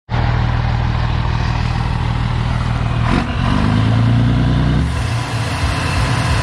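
Scania 113 truck's straight-six diesel running through a straight-pipe exhaust with a deep rumble. It picks up briefly about halfway through, then settles back.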